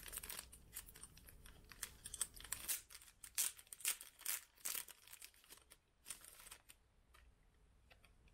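Clear plastic packaging crinkling and rustling in the hands as it is opened, a quick run of small crackles that thins out near the end.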